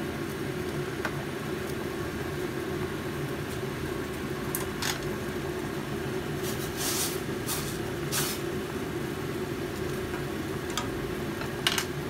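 Pot of water boiling hard on a gas burner: a steady bubbling and burner rush, with a few short scrapes of a wooden utensil stirring in the pot about halfway through.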